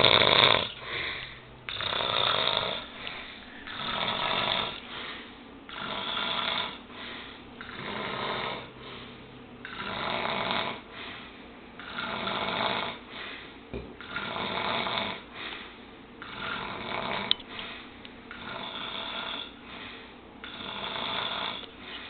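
A person snoring in a steady rhythm, a snore about every two seconds, the loudest one right at the start.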